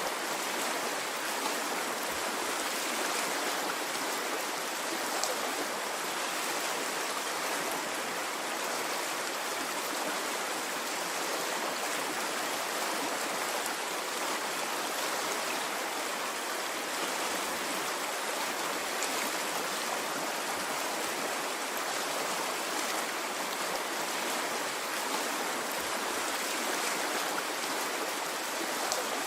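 Water stream flowing, a steady even rushing with no rise and fall.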